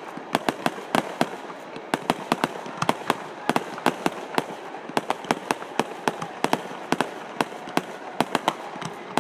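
Fireworks going off: a rapid, irregular string of sharp bangs, several a second.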